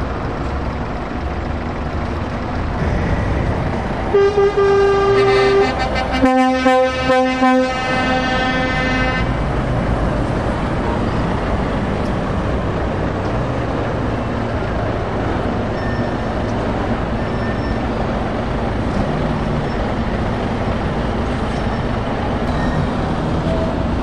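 Lorry horns sounding as trucks drive past: a higher horn held for about a second and a half, then a lower horn in a run of short blasts. Before and after, the steady running of passing lorry engines.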